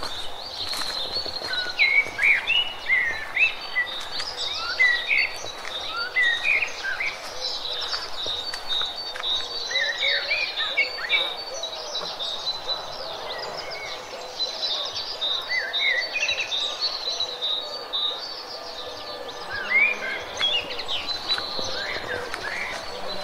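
Many small birds chirping, a busy mix of short calls scattered throughout over a steady hiss.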